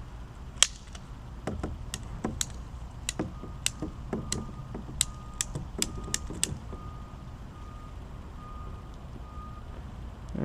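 Hard clicks and knocks of PVC pipe and tee fittings being handled and pushed together, about fifteen in the first six and a half seconds. Behind them, from about three seconds in, a faint beep at one pitch repeats a little more than once a second.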